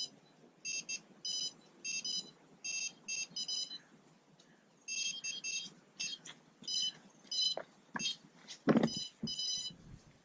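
Electronic carp bite alarm sounding strings of short, high-pitched beeps in irregular bursts as line is pulled: a fish is taking line. A couple of low knocks come near the end.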